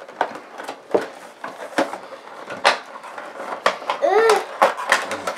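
Cardboard Funko Pop box being opened by hand: a series of sharp clicks and taps as the flaps are handled, with a brief child's vocal sound about four seconds in.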